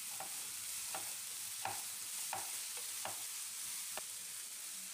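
Sliced onions sautéing in oil in a non-stick frying pan: a steady soft sizzle under repeated scraping strokes of a spatula stirring them, a little more than one stroke a second.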